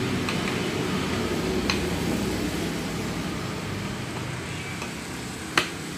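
A spoon stirring pudding mix in a ceramic bowl, with a few light clinks against the bowl and one sharper click near the end, over a steady low background rumble.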